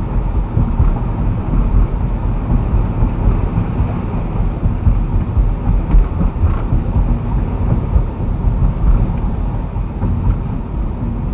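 Car driving: a steady low rumble of engine and road noise, heard from inside the cabin.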